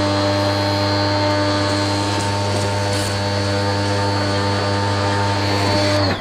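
Hyundai 1400-watt electric pressure washer running steadily: a carbon-brush motor and pump hum with a high whine, over the hiss of the water jet spraying solar panels. Near the end it cuts off and the motor winds down, as the auto-stop shuts the pump when the spray gun trigger is released.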